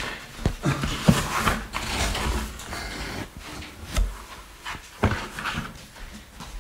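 A large cardboard box being handled and carried: scraping and rustling of the cardboard with several sharp knocks.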